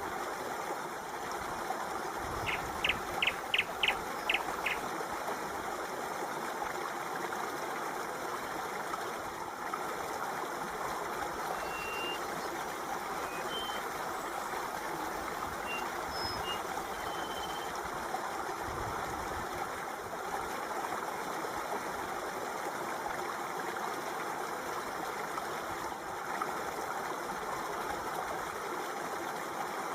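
Flowing water, a steady stream or trickle. A few seconds in comes a quick run of about seven short high beeps.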